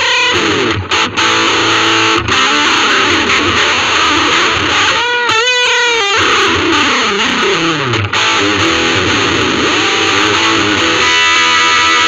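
Ibanez RG350DX electric guitar played through a Vox Soundbox Mini amp: continuous lead playing, with a wide wavering vibrato about halfway through, notes bending down in pitch a little later, and steady held notes near the end.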